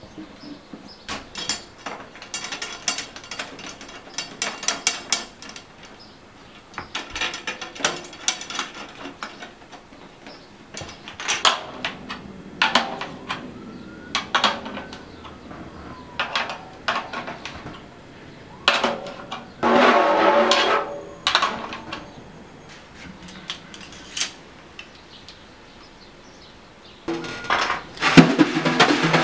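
A drum key turning the tension rods of a snare drum: bursts of small metallic clicks and ratcheting, with short louder rattles, and heavier clattering near the end.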